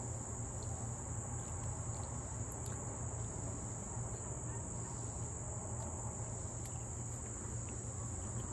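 Steady high-pitched drone over a low hum, with a few faint clicks.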